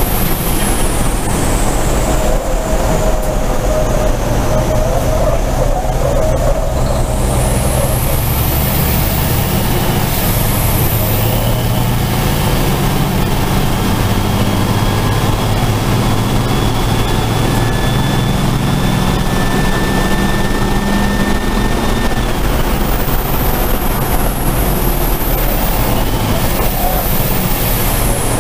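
Onboard sound of a racing truck's diesel engine running hard at racing speed. A high whistle sweeps up and down over it at times.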